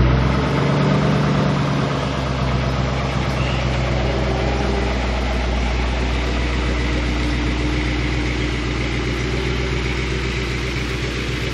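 2008 Ford Mustang GT's 4.6-litre V8 idling through an SLP Loudmouth axle-back exhaust, a steady deep burble that settles slightly in the first couple of seconds. The sound booms and is a little distorted inside the garage.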